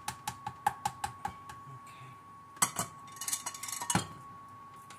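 A stick blender's head tapped quickly against the rim of a plastic tub, about six light taps a second that die away after a second and a half. Then a louder knock, a short clatter and a final knock as the blender and kitchen things are set down.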